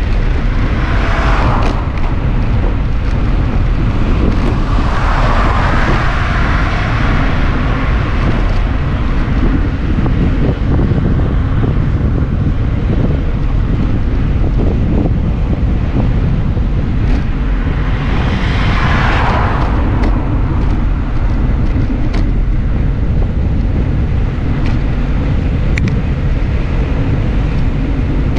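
Wind buffeting the microphone of a handlebar-mounted GoPro on a moving bicycle, a steady heavy rumble. Three times the tyre hiss of a passing car swells and fades over about two seconds.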